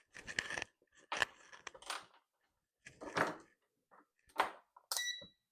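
Digital multimeter being handled and its selector dial turned: a run of clicks and clatters, then a short electronic beep about five seconds in from its continuity tester.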